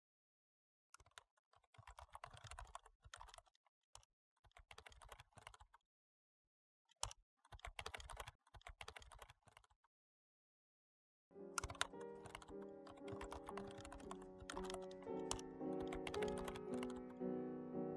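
Typing on a laptop keyboard in three short bursts of quick key clicks. About eleven seconds in, music with held notes comes in and the key clicks carry on over it, getting louder.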